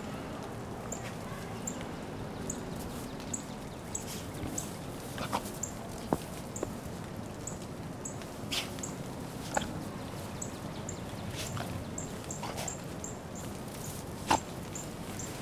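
Dog burrowing its face through deep snow: irregular short sharp snorts and snow crunching, the loudest about six and fourteen seconds in. A faint high peep repeats about twice a second throughout.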